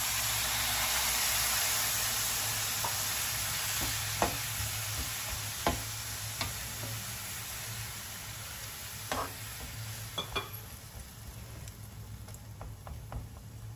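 Water poured into a hot kadai of elephant yam sticks frying in oil sets off a loud sizzle that slowly dies away. The spatula clinks and scrapes against the pan a few times as the yam is stirred through the water.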